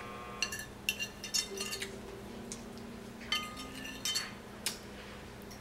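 Metal fork scraping and clinking against a dinner plate while the last bits of food are picked up. The short clinks come irregularly, bunched around half a second to two seconds in and again around three to five seconds in.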